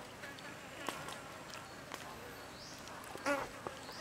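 Metal spoon clicking and scraping lightly against a wooden chopping board as it spreads marinade over raw chicken wings, a few separate clicks, with a short pitched buzz about three seconds in, the loudest sound.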